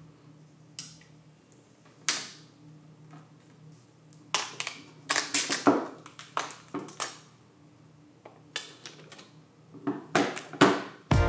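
Thin plastic protective film being peeled off a folding phone's screen, crinkling in irregular crackles and rustles, most of them bunched in the middle.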